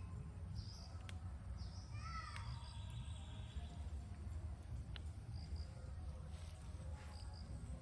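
Outdoor ambience: a steady low rumble with small birds chirping now and then, including a quick run of chirps about two seconds in. A couple of sharp clicks are heard.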